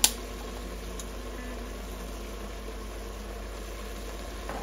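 A steady low hum with a faint even hiss, and a sharp click at the very start and a fainter one about a second in.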